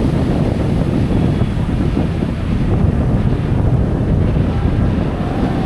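Wind buffeting the microphone: a loud, steady low rumble with no clear tone.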